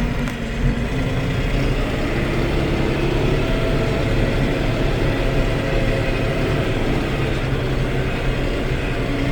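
Tractor engine running steadily while it works a hay spear among bales.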